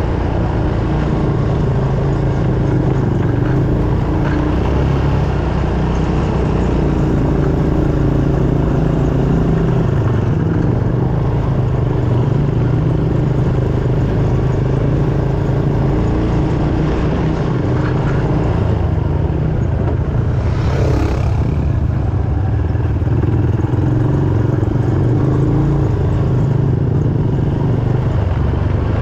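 ATV engine running steadily under way, with a brief surge of noise about two-thirds of the way through.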